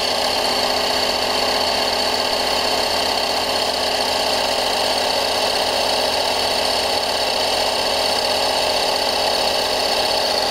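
A 12-volt portable digital tire inflator's electric compressor running steadily, pumping air into a car tire up toward its preset 38 PSI shutoff. The pitch holds even throughout, a buzzing hum with a high whine on top.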